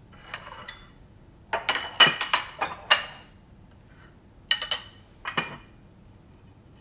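Metal spoons clinking against ceramic plates as the plates are handled and set down on a stone countertop. A quick run of sharp, ringing clinks comes about one and a half to three seconds in, then a few more near five seconds.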